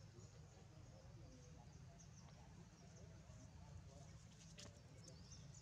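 Near silence: faint outdoor ambience with a steady low rumble and scattered faint high chirps, and a single sharp click about four and a half seconds in.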